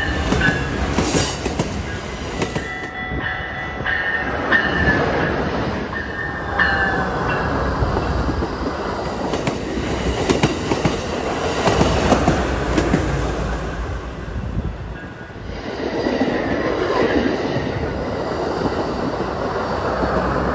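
An Amtrak Hiawatha passenger train, with Siemens Charger diesel-electric locomotives at each end, passing at speed close by: a steady rush of wheels clattering over the rail joints, with some wheel squeal. The noise eases around the middle, then swells again near the end as the trailing locomotive goes by.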